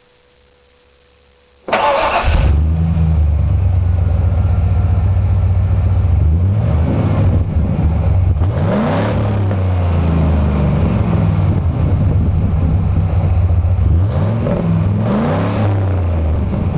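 A 1994 Ford F-150 engine starts about two seconds in, heard through its Magnaflow exhaust at the tailpipes. It then idles loudly and is revved in several short throttle blips.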